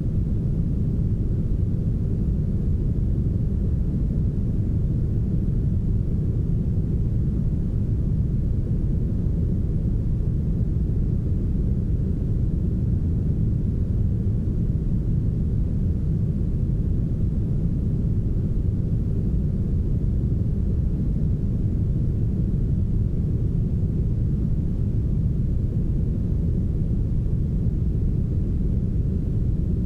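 Steady, smoothed brown noise: an even, deep rumble of noise that stays at one level, with little hiss on top.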